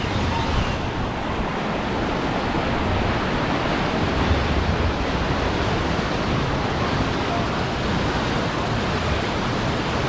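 Whitewater rushing steadily through the concrete channel of an amusement-park river rapids ride.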